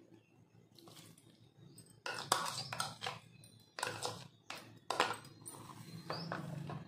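A spoon scraping and tapping as the coffee-and-sugar mixture is emptied from a bowl into a steel blender jar: a series of sharp clinks and knocks that starts about two seconds in.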